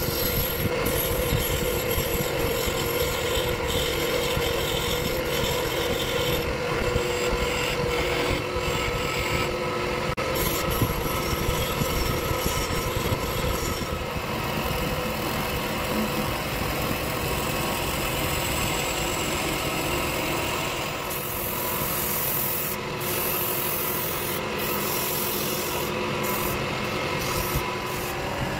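Wood lathe running with a hand-held turning chisel cutting and scraping a spinning wooden vessel: a continuous scraping noise over a steady tone from the machine.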